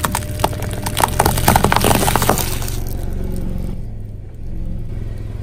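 A car tyre rolling over a pile of wrapped hard candies on concrete: a rapid run of cracks and crunches for about two and a half seconds, over the steady low sound of the car's engine running, which then carries on alone.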